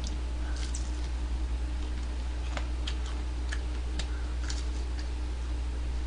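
Scattered soft clicks and smacks of fried chicken being picked apart by hand and eaten, irregular and a few to the second, over a steady low electrical hum.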